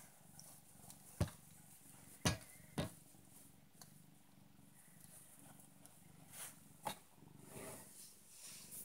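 Domestic cat purring steadily, with a few sharp clicks about a second in, twice between two and three seconds, and again near seven seconds, and some rustling near the end.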